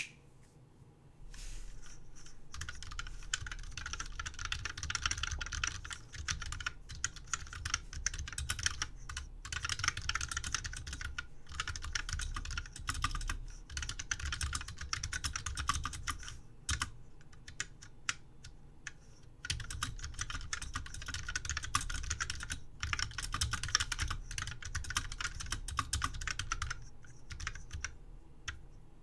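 Fast typing on a Stone MS-2403 electric typewriter's keyboard, whose keys are Alps integrated dome switches with black sliders, giving rapid clicky keystrokes. The typing comes in two long runs with a pause of a few seconds between them. A low hum comes on about a second in, just before the typing starts.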